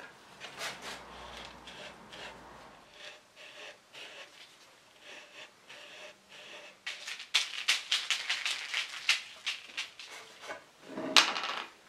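Gloved hands handling plastic cups, lids and a foam brush on a workbench: light clicks, scrapes and rubbing, with a quicker run of scrapes and clicks about seven to nine seconds in and a louder burst of handling noise near the end.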